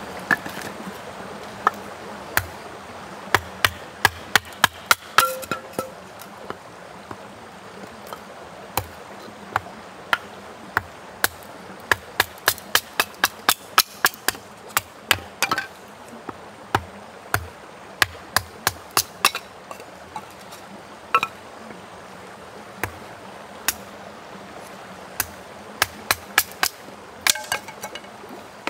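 Hatchet blade knocking into a piece of firewood on a chopping stump, splitting it into kindling: dozens of sharp, irregular knocks, sometimes in quick runs, over the steady rush of a stream.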